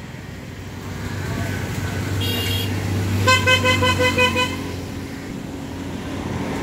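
Road traffic going by: a vehicle engine rumbling past, swelling toward the middle, with a short high tone and then a horn sounding in a quick string of short beeps, about five a second, for just over a second.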